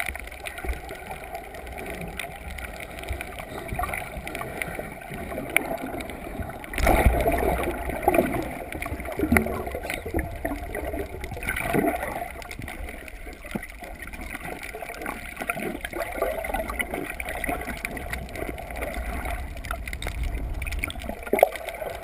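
Muffled rushing and gurgling of water heard underwater, with scattered small clicks and bubbles. The rush of surge swells louder about 7 seconds in and again around 12 seconds.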